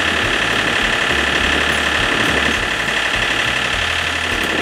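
John Deere 4400 tractor's Yanmar diesel engine running steadily at idle.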